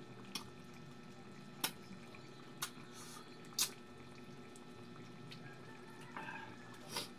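Eating sounds of a man taking food by hand: about five short, wet mouth smacks and clicks spread a second or so apart, over a low steady hum.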